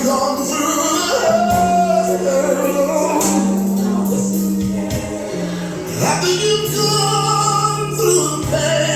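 Gospel music at a group rehearsal: voices singing held notes over instrumental accompaniment, with a sustained bass line that steps to a new note every second or two.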